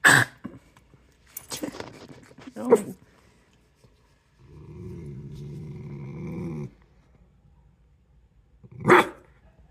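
A dog giving short, loud woofs: one at the very start, a few around two to three seconds in, and one near the end. In the middle it growls steadily for about two seconds.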